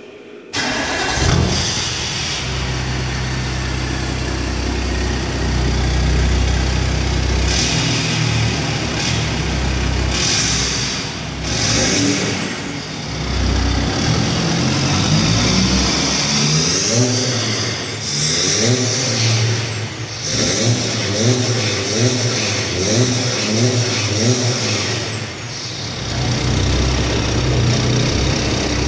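Audi A5 2.7 TDI V6 diesel with a Supersprint exhaust, downpipe and K&N air filter starting up about half a second in and idling. It is then revved, first in a few single blips and later in a quick string of short rises and falls, before dropping back to a steady idle. The sound carries the reverberation of an underground car park.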